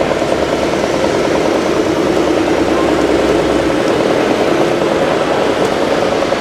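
Truck engine sound from a radio-controlled scale truck's sound module, running steadily at a low, even pitch.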